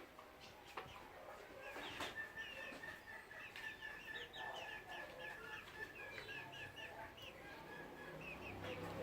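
Chickens calling faintly, with a long run of short, quick high chirps through the middle and a couple of sharp clicks near the start.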